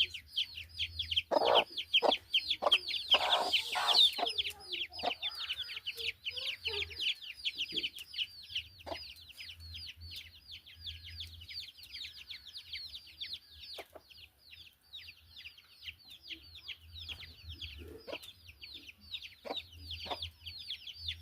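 Chicks peeping continuously: a rapid, unbroken stream of short, high, falling chirps, several a second. A few knocks sound in the first few seconds.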